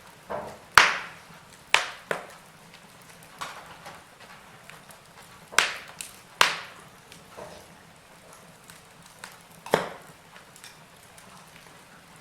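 Firewood burning in a fireplace, crackling: a handful of sharp, loud pops about a second apart early on and again around the middle and near the end, with small faint crackles between.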